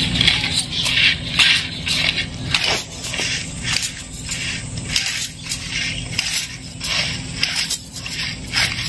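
Hands tossing and mixing sliced bitter gourd in a terracotta bowl to coat the slices with salt: the slices knock and scrape against each other and the clay in quick, irregular strokes, about two a second.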